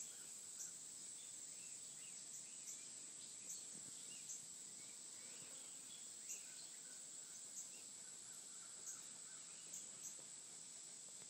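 Quiet outdoor background: a steady high-pitched insect drone with faint, scattered bird chirps.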